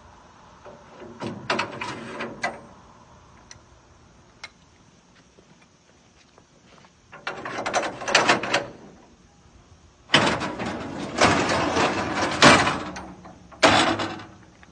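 Metal loading ramp being pulled out of a pickup bed and set up, metal sliding and clattering in four bursts, the longest from about ten to thirteen seconds in.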